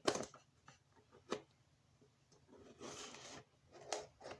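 Packaging tape being worked loose from a taped-up cardboard box: scratchy rubbing and scraping with a few sharp clicks.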